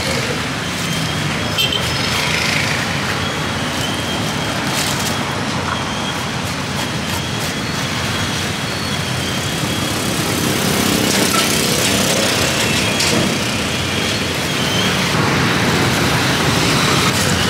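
Steady street traffic noise, motor vehicles and motorbikes running past, growing a little louder about ten seconds in.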